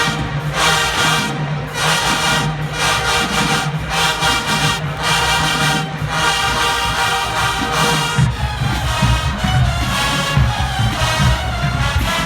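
Large marching band of over 300 members playing loudly: brass and drums in short, punched chords, the playing busier after about eight seconds.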